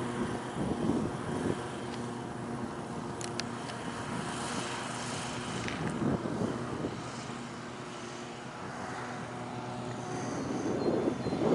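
2.0 m radio-controlled T-28 model airplane flying, its motor and propeller making a steady drone, with rushing noise swelling a few times.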